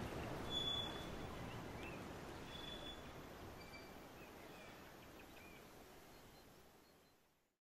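Outdoor ambient noise with a few short, high chirps, fading steadily down to silence near the end.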